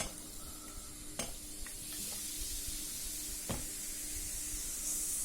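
Baking soda and vinegar fizzing in a glass, a steady hiss that grows louder about two seconds in, with a few light clicks, as the reaction gives off carbon dioxide gas.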